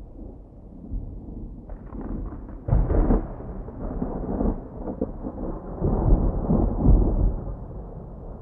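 Thunder over steady rain: a crack about two seconds in, a loud peal about three seconds in, then rolling rumbles that die back to the rain near the end.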